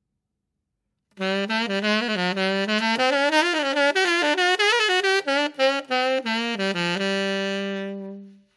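Saxophone playing a short, fast hot jazz lick, starting about a second in and ending on a long held low note that fades away.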